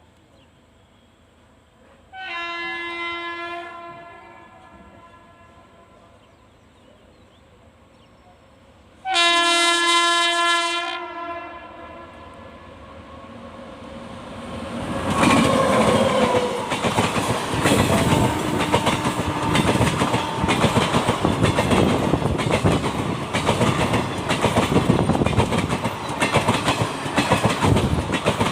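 WAP7 electric locomotive sounding its horn twice as it approaches at speed, a short blast and then a longer one. Then the locomotive and express coaches pass close by, with loud clickety-clack of wheels over rail joints.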